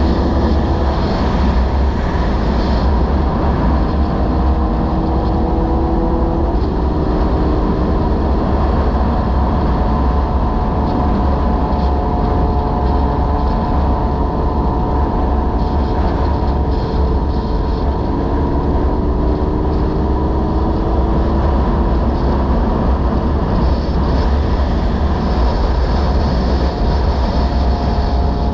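Motorcycle engine running at cruising speed under heavy wind rush on a bike-mounted microphone. The engine's pitch drifts gently up and down with small throttle changes.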